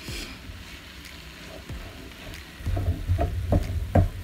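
Mixed vegetables sizzling softly in oil and butter in a frying pan. About two-thirds of the way in, a spoon starts stirring them, with a low rumble and a few knocks of the spoon against the pan.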